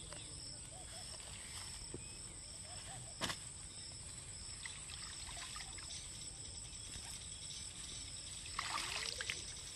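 Steady high-pitched insect chirring, typical of crickets, over faint outdoor noise, with a sharp click about three seconds in and a short burst of rustling near the end.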